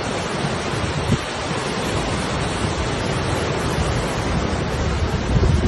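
Swollen stream in flood, its water rushing with a steady, even noise. A few low gusts of wind hit the microphone near the end.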